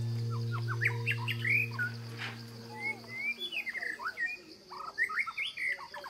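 Songbirds chirping in many short, quick rising calls, over a steady high hiss. A low held tone fades out about halfway through.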